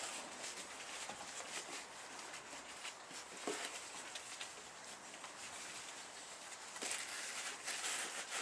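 A sleeping dog snoring, the noisy breaths swelling louder about seven seconds in and again near the end.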